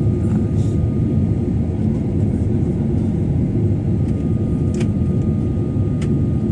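Steady low drone of an airliner's cabin, heard from inside while the plane sits with its engines and air system running, with a faint steady whine over it and two small clicks near the end.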